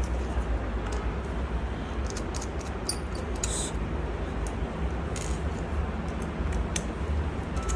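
Small screwdriver working the little mounting screws out of a laptop hard drive: a few faint metal clicks and ticks over a steady low hum.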